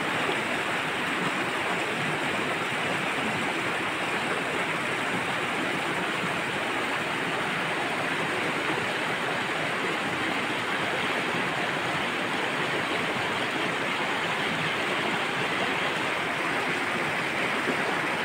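Steady rushing of flowing stream water, an even unbroken wash of noise.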